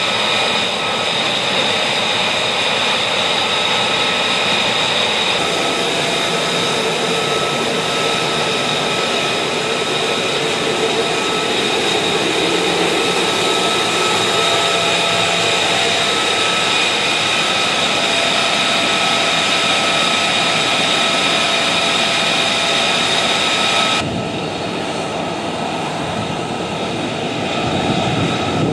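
Jet aircraft engine idling: a steady high whine of several held tones over a rushing noise. About 24 seconds in the sound changes abruptly, losing its highest edge and turning duller.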